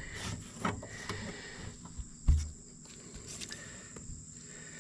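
Light clicks of metal parts being handled, with one loud dull thump about two seconds in, over a steady high-pitched whine.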